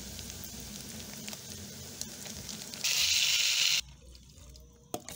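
Chopped tomatoes, onions and peppers frying in an aluminium pot, then bean broth poured in, with a louder hiss for about a second that stops suddenly.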